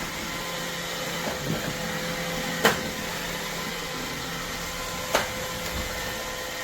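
Roomba robot vacuum running with a steady whirring hum, and two sharp knocks about two and a half seconds apart.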